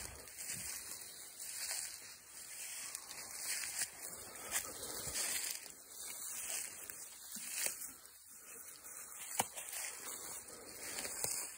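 Footsteps crunching and rustling through dry leaf litter, an uneven run of crackles with a sharp snap now and then.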